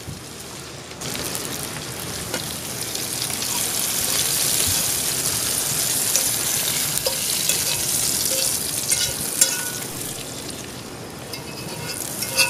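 Mushrooms and hot butter and olive oil sizzling in a cast-iron skillet as they are scraped out with a fork; the sizzle starts about a second in and grows louder. A few clinks of the fork against the pan come near the end.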